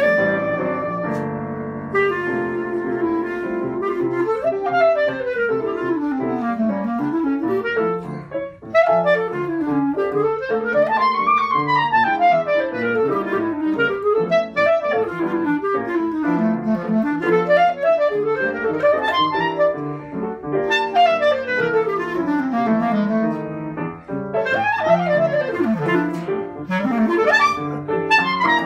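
Clarinet and piano duo playing jazz: the clarinet holds notes at first, then plays fast runs sweeping up and down over the piano's chords.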